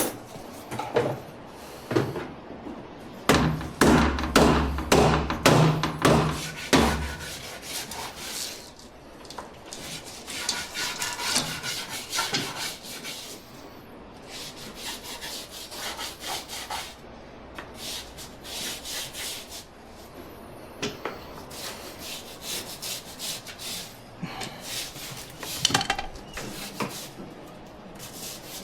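A power drill runs for about three seconds, among sharp knocks, as work starts on a sliding glass door panel to replace its rollers. After that come repeated scraping and rubbing strokes with scattered knocks, from tools working on the panel.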